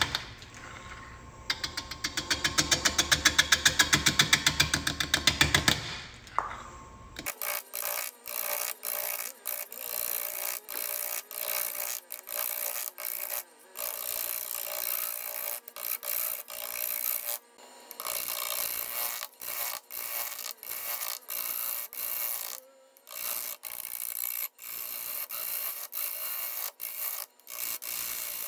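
Wood being worked by hand in repeated back-and-forth rubbing strokes, a scratchy abrasive sound with short pauses between strokes. For the first six seconds a louder pulsing sound with a low rumble, about four to five pulses a second, stops suddenly before the strokes begin.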